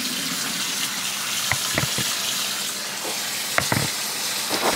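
Kitchen faucet running in a steady stream into a stainless steel sink, with a few short knocks against the sink a couple of times in the middle and near the end.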